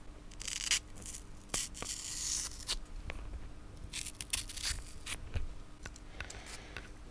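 Brittle, hardened foam thermal insulation being scraped and picked out of a crystal oven oscillator's metal can with a thin metal tool. It crumbles and rasps in several short scratchy spells, with a few small clicks of metal on metal.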